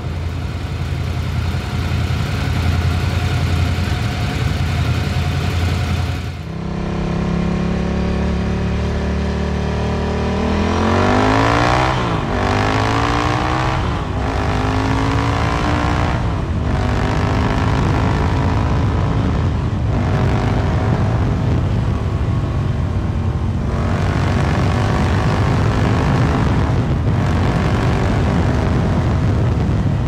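Ducati Sport Classic's air-cooled 992 cc L-twin idling steadily for about six seconds. After a cut, the bike accelerates hard through a road tunnel, the engine note rising and dropping back with each of several upshifts.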